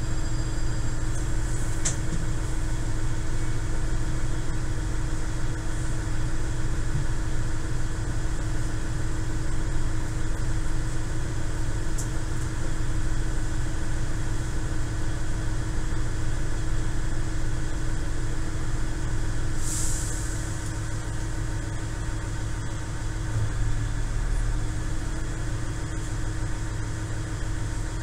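KiHa 110 series diesel railcar's underfloor diesel engine idling, a steady hum heard from inside the rear cab while the train stands still. A short hiss about two-thirds of the way in.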